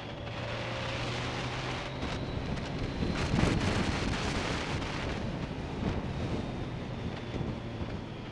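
BMW K1200S inline-four motorcycle engine running steadily at cruising speed, mixed with wind noise on the microphone that swells to its loudest about three seconds in.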